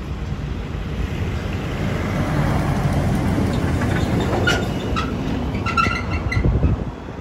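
Diesel semi-truck pulling an empty flatbed trailer passes close by: a heavy engine rumble with tyre noise that builds to its loudest as it goes past. Near the end there are brief rattles and a few short high squeaks.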